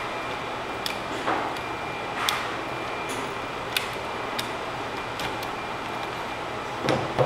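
Scattered light clicks and taps from an HP TouchSmart TX2 laptop's case and parts being handled, with a slightly stronger knock near the end, over a steady hiss.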